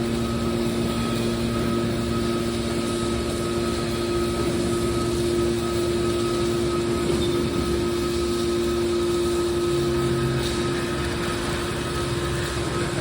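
Scrap steel baler running with a steady, constant-pitched machine hum.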